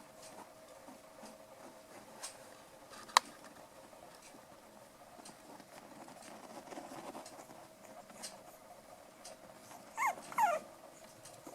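Five-week-old poodle puppies at play, scuffling softly, with a sharp click about three seconds in. Near the end a puppy gives two short whimpers, each falling in pitch.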